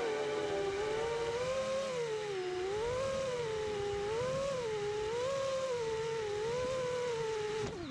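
Brushless motors of a 5-inch FPV racing quadcopter (DYS Samguk 2306 2250KV) whining steadily, the pitch rising and falling about once a second as the throttle is worked. Near the end the whine drops sharply as the motors spool down.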